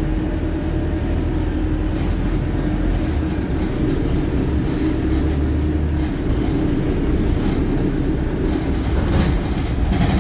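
Inside a Wright StreetLite single-deck bus on the move: its diesel engine running steadily under a low rumble of road noise, with loose interior fittings rattling. The deepest engine tone drops away about six seconds in.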